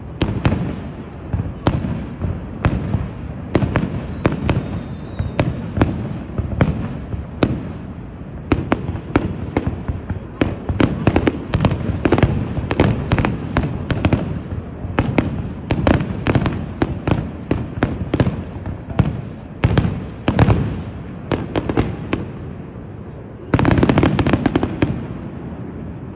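Fireworks display: a rapid, continuous barrage of sharp bangs from aerial shells bursting, several a second, thickest in the middle. Near the end comes a louder, dense stretch of about a second and a half.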